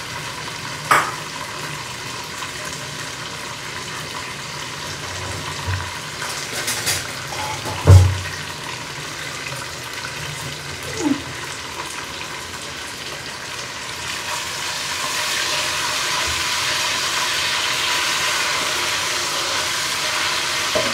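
Hot ghee sizzling steadily in a pot with green chillies, nuts and whole spices. The sizzle grows louder from about fourteen seconds in. A few knocks come through it, the loudest a dull thump about eight seconds in.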